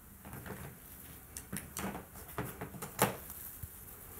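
Paint tubes and a palette knife handled at a painting palette: a few light knocks, clicks and short scrapes, the sharpest knock about three seconds in.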